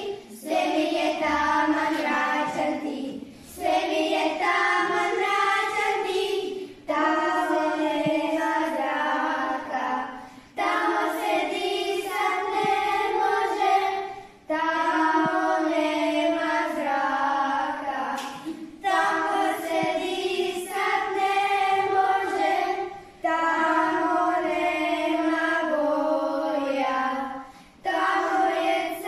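A small group of children singing a song together, unaccompanied, in phrases of a few seconds with short breaks for breath between them.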